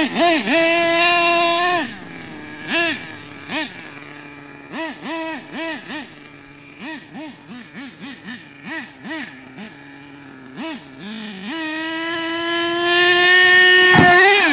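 HPI Savage 25's small nitro two-stroke engine, fitted with a new exhaust, running at high revs for about two seconds. It then drops to a string of short throttle blips that rise and fall about twice a second, and winds up in a long rising full-throttle run. A thump comes near the end.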